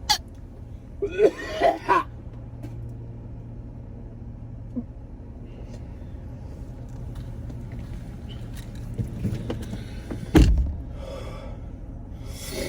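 Steady low hum of a car idling, heard inside the cabin. A person makes brief strained vocal sounds about a second in, and there is a single thump about ten seconds in.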